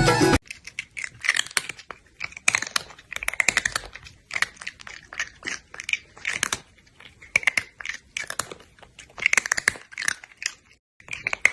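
Close-up crunchy chewing: crisp crunches come in clusters, bite after bite, with short pauses between them.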